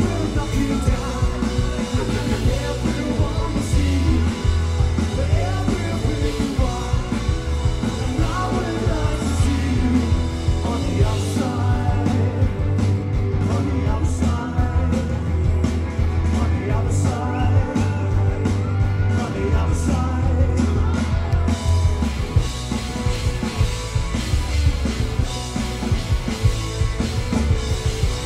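Live rock and roll band playing, with singing over electric guitars, a heavy bass line and drums.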